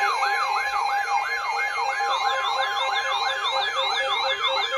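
Electronic emergency alert tone: a siren-like sound rising in pitch over and over, about three times a second, over a steady tone. It is the attention signal that comes before a broadcast severe thunderstorm warning.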